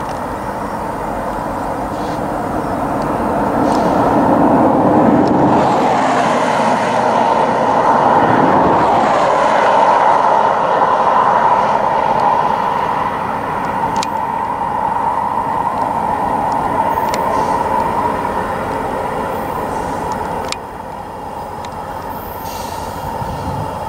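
Union Pacific freight train approaching behind its diesel locomotive: a steady running rumble that grows louder over the first few seconds, holds strong, then drops off suddenly about 20 seconds in.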